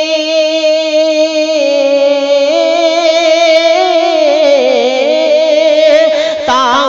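A male voice singing a long, drawn-out note with vibrato, a wordless melisma stretched over a line of an Urdu devotional nazm. It holds steady at first, then the pitch sways and dips about four seconds in.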